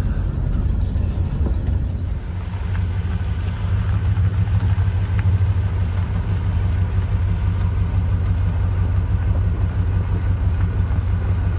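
Engine and tyre noise of a converted camper vehicle driving slowly on a gravel road, heard from inside the cab: a steady low drone that grows a little louder about four seconds in.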